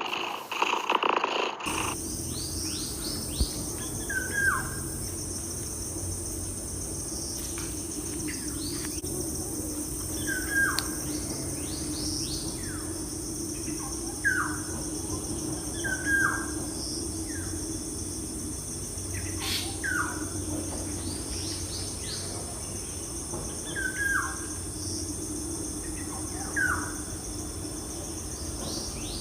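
Birds chirping in short falling calls every couple of seconds, over a steady high insect drone and a low hum. A brief louder sound opens the stretch.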